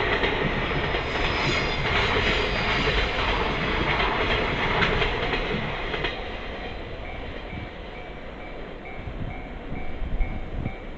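A train on the JR Sanyo Main Line clattering over a level crossing, its wheels clicking over the rail joints, fading away about six seconds in. The crossing's warning bell rings on in an even, repeating ding about twice a second, heard plainly once the train has passed.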